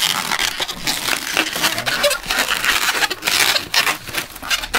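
Latex modelling balloons (260Q) rubbing and squeaking against each other and against the hands as they are twisted and fitted together, a busy run of irregular rubs.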